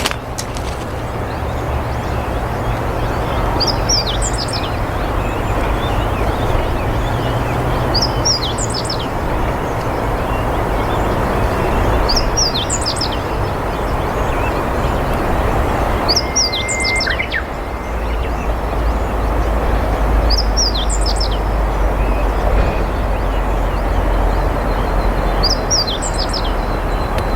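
Meadow bunting singing: six short, high song phrases, one about every four seconds, over a steady low rumble and hiss.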